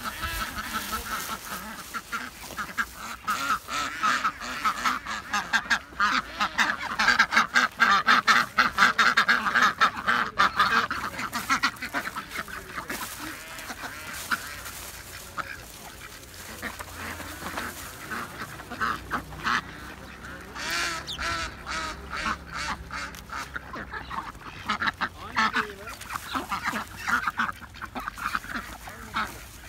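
A flock of domestic ducks quacking in a dense, rapid chorus as they crowd in to be fed bread, loudest in the first dozen seconds and again in bursts near the end.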